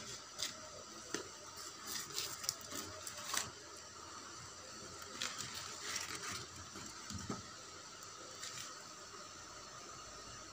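Firewood burning in the firebox of a wood-fired brick-and-clay stove under a pot of water, crackling with irregular sharp pops over a faint steady hiss. The pops come thickest in the first few seconds and again around the middle.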